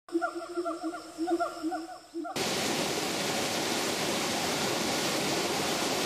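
About two seconds of short, repeated pitched notes, then a sudden cut to the steady rush of a small stream cascading over boulders.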